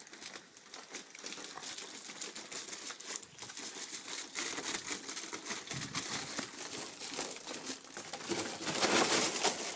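A miniature dachshund puppy scrambling through an 8-inch flexible aluminium-foil duct, the foil crinkling and crackling with the dog's movement, the sound growing louder near the end.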